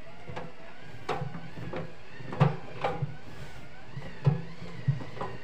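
Drum of a Schaub Lorenz front-loading washing machine turned by hand with clothes inside: irregular thumps and knocks as the drum moves and the laundry tumbles, over a low steady rumble. The sharpest knocks come about two and a half seconds in and just after four seconds.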